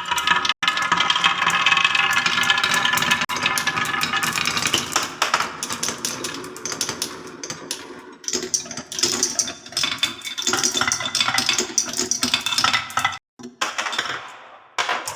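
Many marbles rolling and rattling down a marble run track, a dense stream of clicks and clinks, with ringing tones in the first few seconds.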